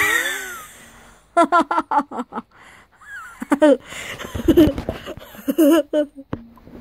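A boy laughing hard. He gives a high falling shriek at the start, then laughs in repeated short bursts with breaths in between.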